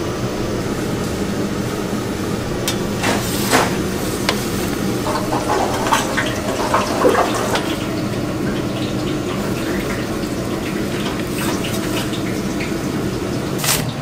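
Water running steadily, as at a kitchen sink, with a few sharp clinks and knocks of kitchen utensils scattered through it.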